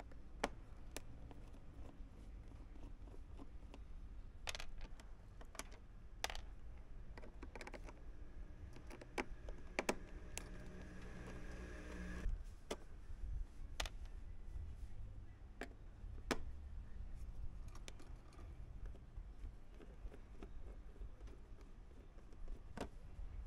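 Scattered light clicks and taps of a small screwdriver working the screws out of a Vespa GTS 300's rubber floor mat, over a low background rumble.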